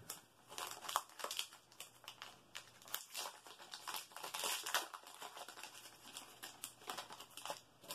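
Foil wrapper of a Japanese Pokémon booster pack crinkling and crackling as it is handled and opened by hand: a quick, irregular run of crackles, busiest in the middle.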